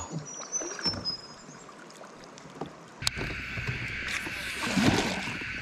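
Ambience of an inflatable drift boat on a river. At first it is quiet, with faint high chirps stepping down in pitch. About three seconds in, it changes abruptly to a louder, steady hiss with a few knocks and low thumps.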